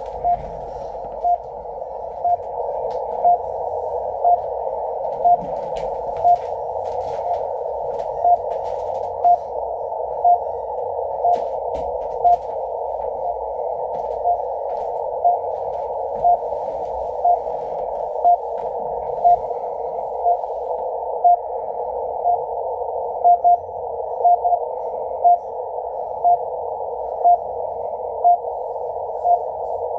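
RWM time signal from Moscow received on shortwave at 14996 kHz through a Yaesu FTdx10 in CW mode: a short tone pip once a second over a steady band of hissing static, narrowed by the 500 Hz filter. Near the end a few of the second pips come doubled, the way RWM marks the UT1 time correction.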